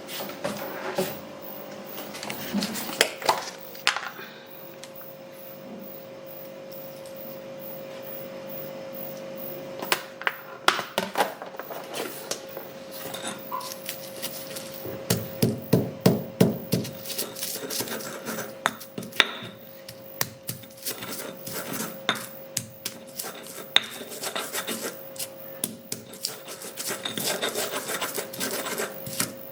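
An ulekan pestle grinding and pounding spices in a cobek mortar to make spice paste: rubbing, scraping strokes mixed with sharp knocks. Between about 4 and 10 seconds in it settles into quieter grinding, and around the middle it breaks into a run of quick pounding, with a steady faint hum underneath.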